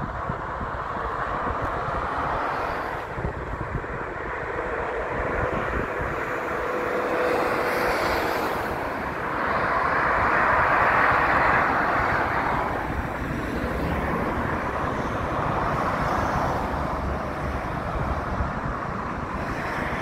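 Strong wind buffeting the phone's microphone, with an irregular low rumble under a broad, steady rush that swells about ten seconds in and then eases.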